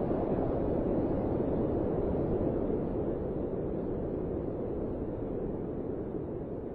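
Ocean surf: a steady rushing noise of waves that slowly fades.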